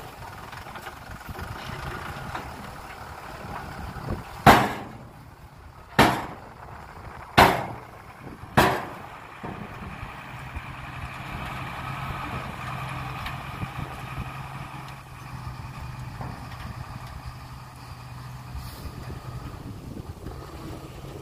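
Hyundai dump truck's diesel engine running steadily at idle, with four loud bangs, each ringing briefly, coming about a second and a half apart starting around four seconds in.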